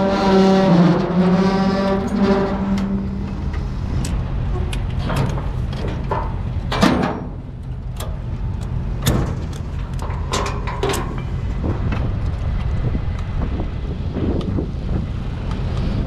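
Steady low rumble of a vehicle on the move, with a long horn blast that fades out about three seconds in, and several sharp clicks and knocks in the middle.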